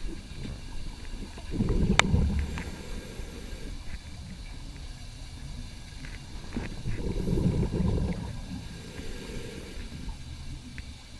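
Scuba divers' exhaled bubbles heard underwater: two long low bubbling bursts about five seconds apart and a fainter third, over a steady low underwater hum, with scattered sharp clicks.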